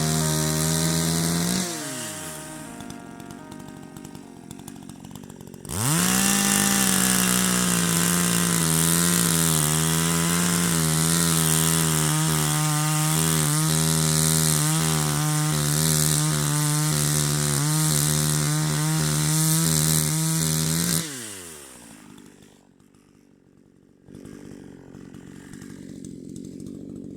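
Oleo-Mac GSH 56 two-stroke chainsaw engine running at high revs, dropping back to a low idle after about a second and a half. About six seconds in it is revved up sharply again and held steady at high revs for roughly fifteen seconds, then let back down near the end.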